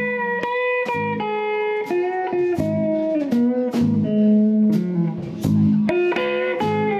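A live blues band playing an instrumental passage: a lead guitar plays sustained, shifting melody notes over bass guitar and drums, with regular cymbal and drum hits.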